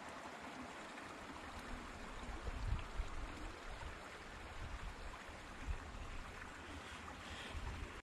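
Steady rushing outdoor background noise with low rumbles of wind buffeting the microphone, strongest about two and a half to three seconds in. A few faint clicks from small plastic bottles being handled.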